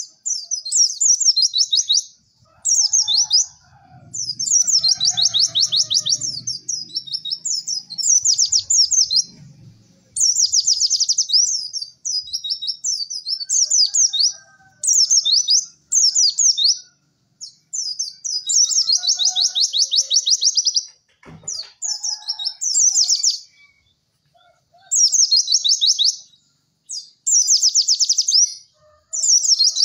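White-eye (pleci) singing vigorously: fast, high twittering trills in bursts of half a second to two seconds with short gaps between them.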